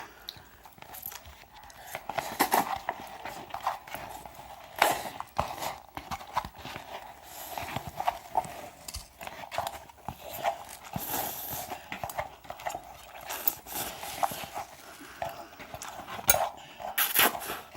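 Ramen being eaten quickly: irregular slurps, lip smacks and chewing sounds.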